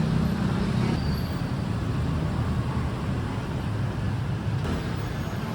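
Steady rumble of road traffic and vehicle engines.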